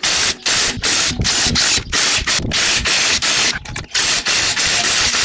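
Rapid back-and-forth abrasive rubbing strokes, about two a second, with a brief pause just before 4 seconds in.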